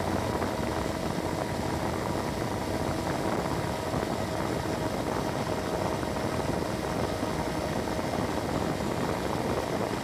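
Homemade DC-motor fan running steadily at full speed, its blades making a constant whir with a faint steady hum running through it.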